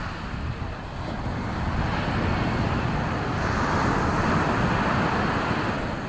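Wind buffeting the microphone over a steady rushing noise that swells in the middle and eases near the end.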